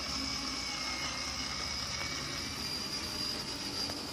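Battery-powered ride-on toy motorcycle running: its small electric motor gives a steady whir and whine while the plastic wheels roll over concrete.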